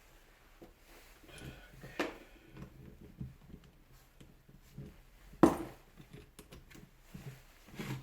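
Small clicks and knocks of a screwdriver and metal parts being handled while screws are undone on a rotary hammer's gearbox housing. Two sharper knocks stand out, about two seconds in and about five and a half seconds in.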